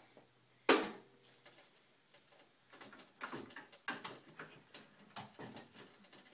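Knocks, clicks and scrapes of a radiator being worked loose and lifted out of a Jeep Liberty's front end: one sharp knock early, then an irregular run of short clatters and rubbing over the last few seconds.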